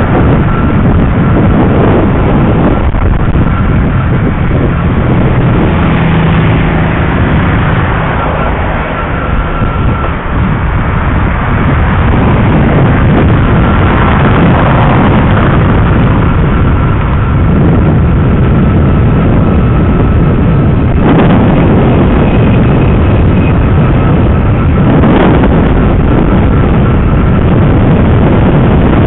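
Loud, steady rushing rumble of riding along a street, with wind on the microphone and road traffic, plus a faint thin whine.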